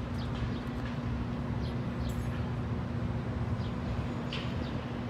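Electric streetcar rolling slowly on its rails: a steady low hum and rumble, with short high bird chirps now and then.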